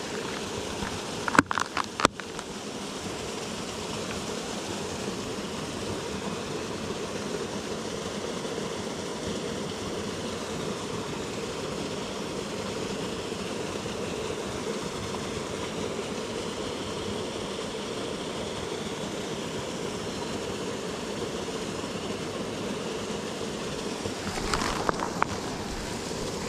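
Steady rush of a swollen creek's flowing water, running on without change. A few sharp clicks sound about a second or two in.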